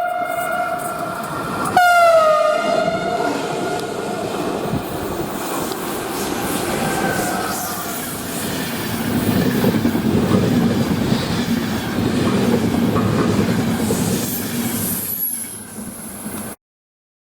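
Train's Makrofon air horn holding one tone that jumps louder and bends down in pitch about two seconds in, then fades. A passing train's wheels and running gear rumble after it, loudest in the middle, until the sound cuts off suddenly near the end.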